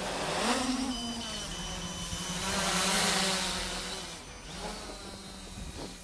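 Traxxas Aton quadcopter's electric motors and propellers buzzing in flight. The pitch rises briefly about half a second in, the sound swells loudest around the middle as the drone passes close, then fades.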